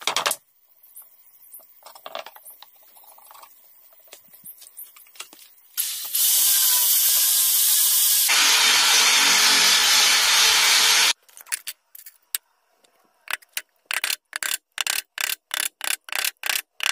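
A cordless drill with a hole saw boring into a thick hardwood slab, a loud steady grinding noise lasting about five seconds that gets heavier partway through as the saw bites deeper. Near the end comes a rapid series of sharp hammer taps, about three a second, as a metal burner ring is driven into the hole. Before the drilling there are only a few light knocks.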